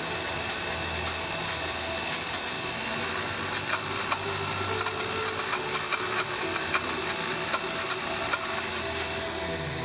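Countertop blender (not a high-speed model) running, grinding almonds and cashews with a little water, with many small clicks of hard nut pieces hitting the jar. The motor slows and stops near the end.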